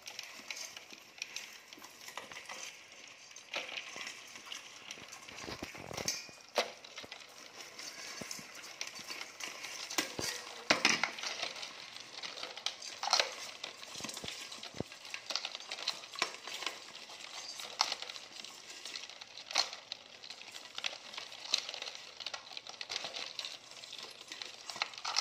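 Rice field crabs' shells and legs clicking and scraping against an aluminium bowl and a plastic jar as they are picked out by hand and dropped in: an irregular run of scratches and clicks, loudest about ten to thirteen seconds in.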